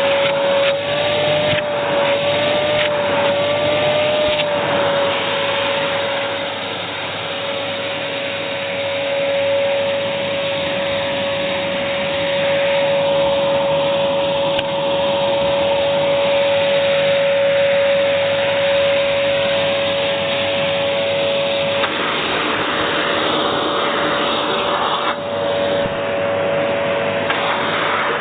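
AEG Airmax AMM6216 2100 W cylinder vacuum cleaner running, a steady rush of air with a high motor whine. About 22 seconds in, the rush turns brighter and the whine shifts slightly.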